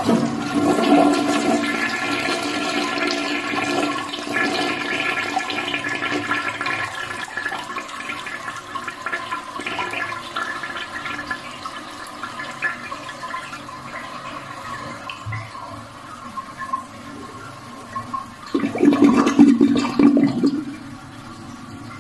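Toilet flushing: a loud rush of water starts at once and slowly dies away over the following seconds. A second short surge of water comes near the end.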